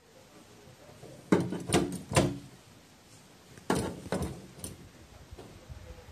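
A crow knocking on a wooden door: six sharp knocks in two groups of three, each about half a second apart.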